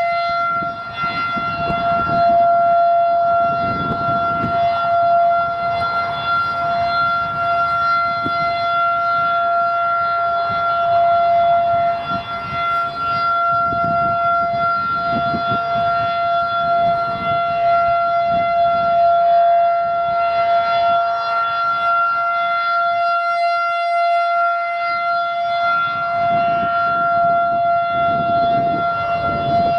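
Federal Signal 2001-SRN rotating electromechanical outdoor warning siren sounding the Alert signal: one steady, unchanging pitch held throughout, its loudness wavering slightly.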